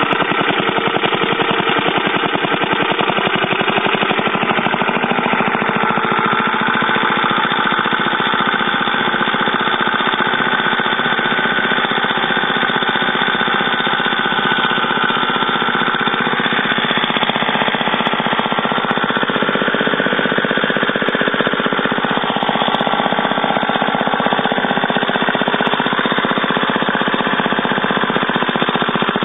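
Old single-cylinder air-cooled small engine running steadily after a cold start, with a rapid, even firing beat; its speed shifts slightly partway through as the throttle is worked.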